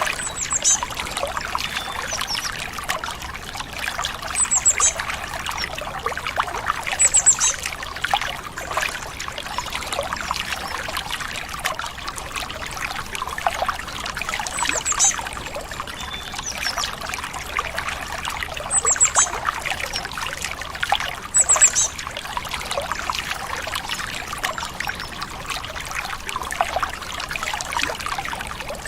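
Stream water trickling and babbling steadily, with a bird giving short, very high chirps every few seconds, each a quick cluster of falling notes.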